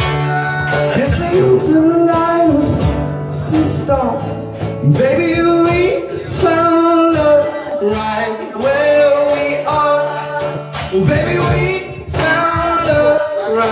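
A man singing live into a microphone with long held notes, accompanying himself on a hollow-body electric guitar.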